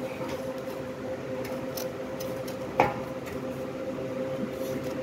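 Kitchen knife cutting through a watermelon's rind, with faint crunching clicks and one sharper crack nearly three seconds in, over a steady hum.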